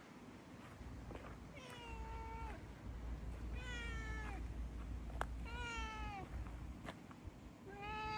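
A cat meowing four times, about two seconds apart. Each meow lasts about a second, holds a fairly steady pitch and drops at the end. The last begins just before the end.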